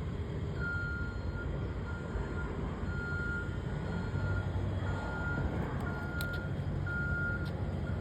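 Reversing alarm on a construction vehicle, a single high beep repeating about once a second, over the low rumble of a running diesel engine.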